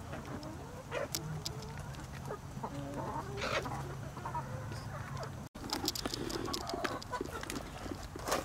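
Backyard hens clucking, many short soft calls overlapping, with scattered sharp clicks. The sound drops out for an instant about five and a half seconds in.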